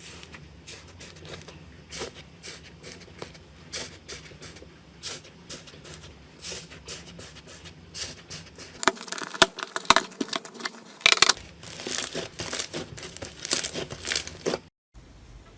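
Slime being pressed and worked by hand, making a dense run of crackling clicks and pops that grow louder in the second half.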